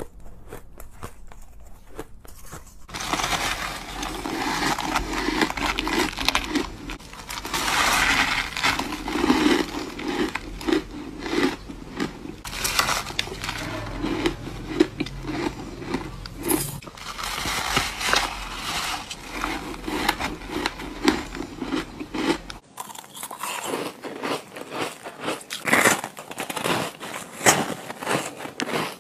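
Crisp crunching bites into soft, snow-like white frozen ice, a rapid run of crunches and chewing. The sound is fainter for the first few seconds and grows dense and loud after about three seconds.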